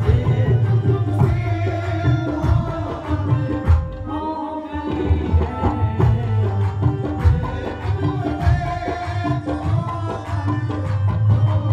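Ghazal music: tabla playing a rhythm under a sustained melodic instrumental line, with a heavy bass.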